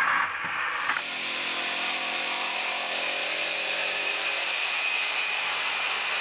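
A power drill boring with a Forstner bit is cut short in the first second. A corded jigsaw then starts with a click about a second in and runs steadily, cutting through the wooden panel to join two drilled holes into a slot.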